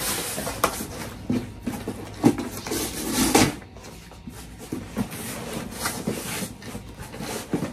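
Cardboard shipping box being handled and its flaps pulled open: irregular scraping, rustling and knocks of cardboard, the loudest a little after two seconds and around three seconds in.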